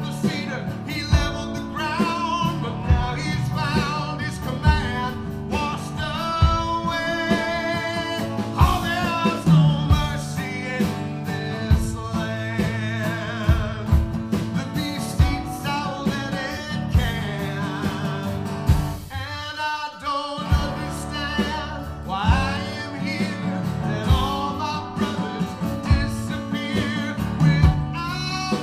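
Live acoustic blues-gospel song: a man singing over strummed acoustic guitar and mandolin, with a short drop-out in the accompaniment about two-thirds of the way through.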